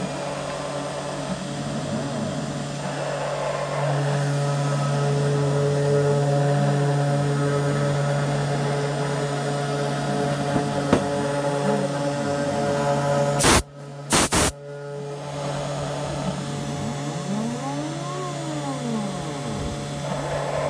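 Homemade CNC router engraving a sign: the spindle runs with a steady hum while the axis motors whine up and down in pitch as the cutter moves from stroke to stroke. About thirteen and a half seconds in, two loud sharp bursts cut through briefly.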